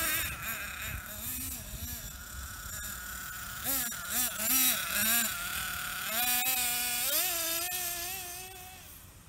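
Hobao Hyper 7 TQ nitro buggy's Hyper 21 three-port glow engine running and revving up and down as the buggy drives. A run of quick throttle blips comes in the middle, then a longer rising rev, and the sound fades near the end as the buggy moves off. The engine has been freshly repinched, with its missing aluminium head shim put back.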